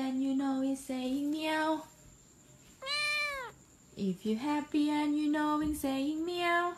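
Scottish Fold cat meowing in a run of long, drawn-out calls, with one higher meow that rises and falls about three seconds in.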